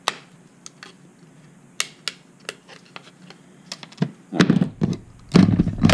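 Hand side cutters snipping a 3D-printed plastic part: about six sharp, separate clicks as the jaws cut through, then louder knocks and handling noise near the end.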